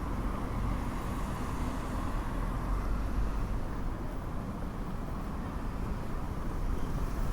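Steady low rumbling background noise with an even hiss over it and no clear events, starting abruptly.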